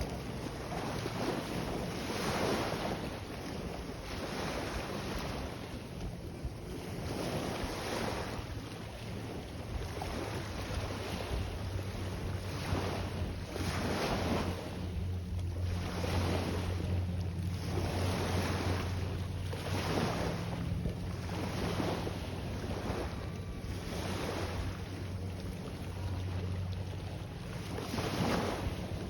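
Sea waves washing and lapping in repeated surges every second or two, with wind buffeting the microphone. A steady low rumble runs underneath and grows stronger from about halfway.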